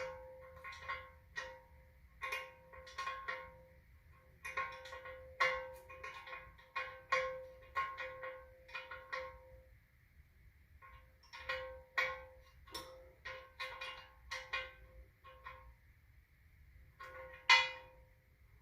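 A metal wrench clinking on a steel truck wheel while the nut on a new valve stem is tightened: a string of irregular sharp, ringing metal clinks with short pauses, the loudest near the end.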